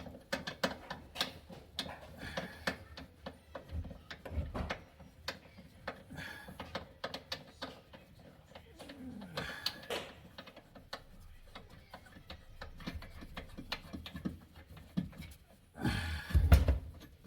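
Scattered small clicks and light knocks of hands working at a built-in dishwasher's mounting hardware, with a heavier thump near the end.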